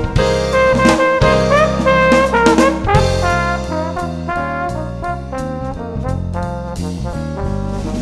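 Instrumental jazz background music, with brass carrying the melody over a bass line that steps from note to note.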